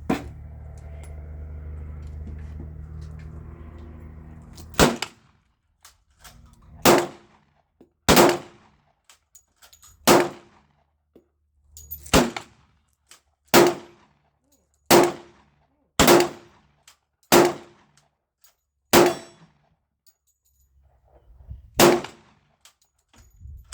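Handgun fired one shot at a time, about eleven shots at an unhurried pace with one to three seconds between them, each with a short ringing echo. A steady low hum fills the first few seconds before the first shot.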